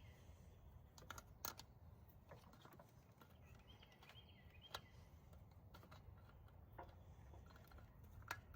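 Near silence with a few faint clicks and knocks from hands working a throttle body's coolant hoses loose.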